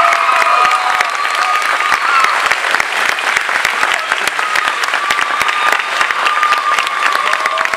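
Audience applauding a choir with dense, steady clapping, and a few long drawn-out whoops held over the clapping.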